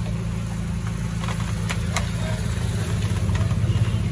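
An engine idling steadily, with a few light clicks over it.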